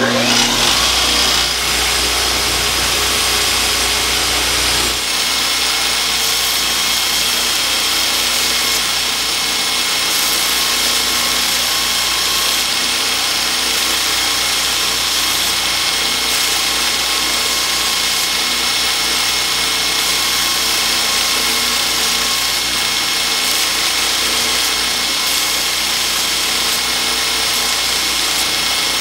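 Electric belt grinder running, its abrasive belt over a contact wheel grinding steel mosaic Damascus tiles held against it, a steady grinding that grinds the forge scale off the steel. A low hum underneath drops away about five seconds in.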